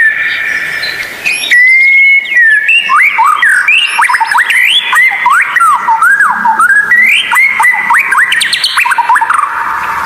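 White-rumped shama (murai batu) singing: a held, level whistle, then, from about two and a half seconds in, a fast run of varied swooping and slurred notes.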